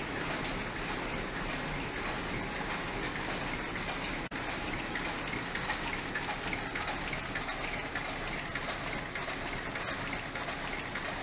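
Stäubli Delta 110 automatic drawing-in machine and the textile machinery around it running, heard as a steady, dense mechanical noise with no clear beat. The sound drops out for an instant about four seconds in.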